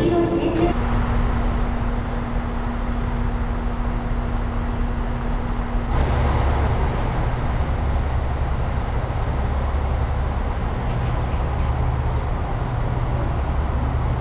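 Steady low hum and rumble of electric trains standing at a station platform. A thin steady tone runs through the first few seconds, and the low hum grows louder about six seconds in.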